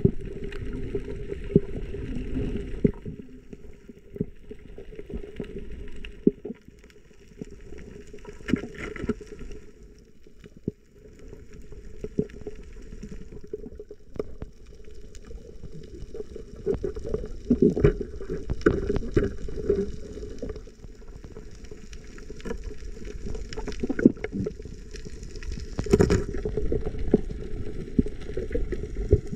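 Water sloshing and gurgling, mostly low and dull, with scattered irregular knocks and clicks.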